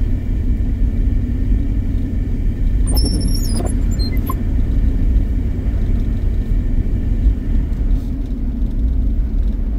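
Steady low rumble of a pickup truck driving on a snow-covered road, heard from inside the cab: engine and mud-and-sand tyres running over snow. A brief high squeak about three seconds in.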